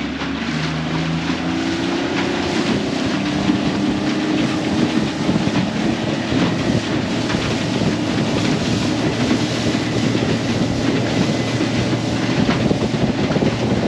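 Yamaha 40 hp outboard motor driving a 14-foot Stabicraft aluminium boat underway, its note climbing over the first few seconds and then running steady, with wind and water rushing past the hull.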